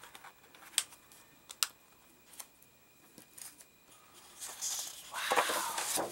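Sheets of scrapbooking paper handled on a tiled tabletop: two sharp taps about a second and a second and a half in, then a louder paper rustle and slide near the end as a sheet is lifted off the stack.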